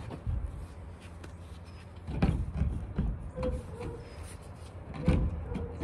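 Metal stove-flue collar knocking and scraping against the edge of a freshly cut hole in a narrowboat's steel roof as it is worked into place: irregular clunks about two seconds in and again near the end.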